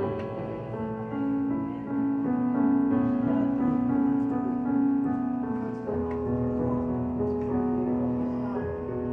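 Electronic keyboard in a piano voice, playing slow, held chords in an instrumental passage of a ballad. The chord changes about six seconds in.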